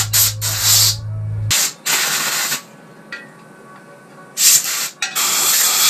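Compressed-air blow gun blasting a motorcycle swingarm in short hissing bursts. There are several quick blasts in the first two and a half seconds, then after a pause two more, the last over a second long.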